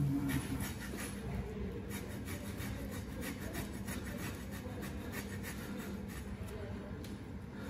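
The edge of a farrier's rasp scraping back and forth across a cured HoofCast on a horse's hoof in repeated strokes, cutting a score line through the cast to take it off.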